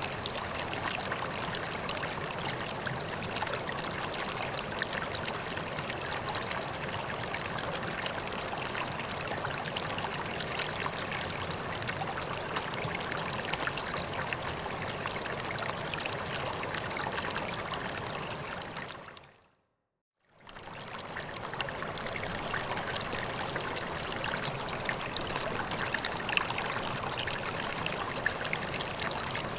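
Koi pond water running and trickling steadily. About two-thirds of the way through it fades out to silence for about a second, then fades back in.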